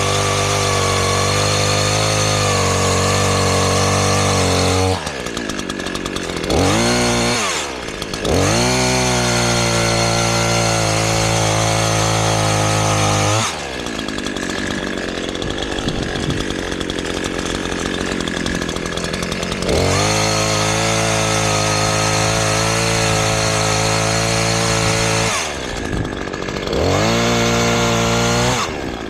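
Chainsaw bucking sassafras windfall logs: the engine runs at full throttle through cuts lasting several seconds, drops back to idle between them, and is briefly blipped up and down. There are four spells at full throttle; the longest idle comes about midway.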